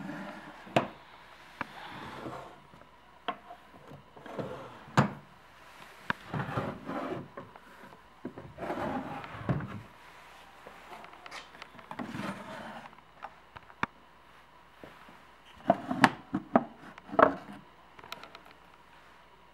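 Wooden drawers of a vintage apothecary cabinet sliding in and out, wood rubbing on wood, with sharp knocks now and then as they bump and seat, several close together near the end.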